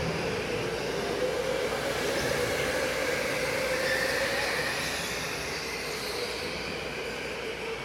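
Racing go-karts running at speed on an indoor track: a steady motor whine that drifts slightly in pitch over tyre and track noise.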